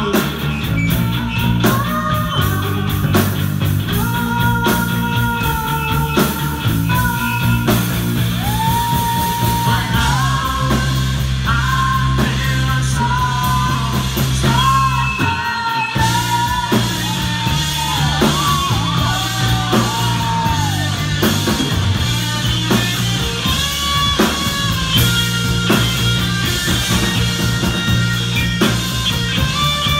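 Live rock band playing: electric bass, electric guitar and drum kit, with a singing voice over them. The bass and low end cut out for a moment about halfway through, then come back in.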